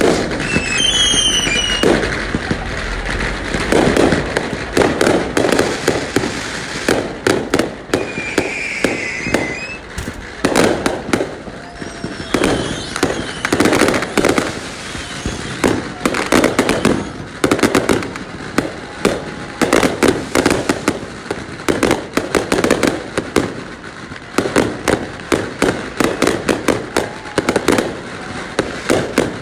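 Aerial fireworks going off in a dense, continuous barrage of bangs and crackles. Short whistles falling in pitch come about a second in and again around eight seconds in.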